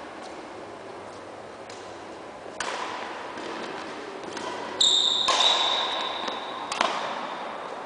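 Badminton rally in a sports hall: several sharp racket strikes on the shuttlecock, each ringing briefly in the hall, with high squeaks of shoes on the court floor in the middle of the rally, the loudest part.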